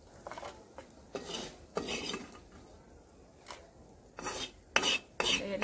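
A perforated steel spoon scrapes and clinks against a metal kadai while scooping out fried whole mini bitter gourds. About six short scrapes come at irregular intervals.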